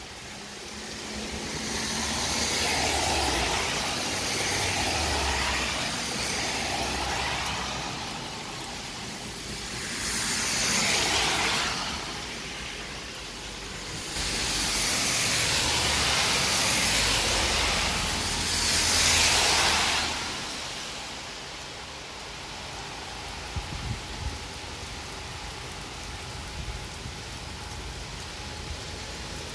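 Steady rain falling on a wet road, with three or four vehicles passing one after another, each a swell of tyre hiss through the water that rises and fades away.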